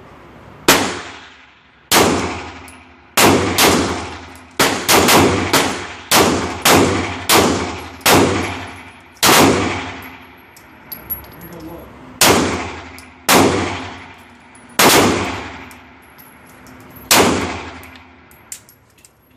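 A string of about seventeen gunshots fired one at a time at an irregular pace, some in quick clusters and others more than a second apart. Each shot has a long ringing, echoing tail that fades over about a second.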